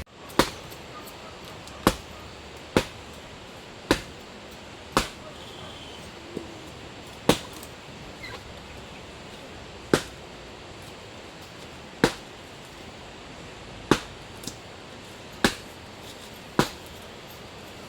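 A tool striking wood in single sharp blows, about one every one to two seconds with a few lighter taps between, over a steady hiss.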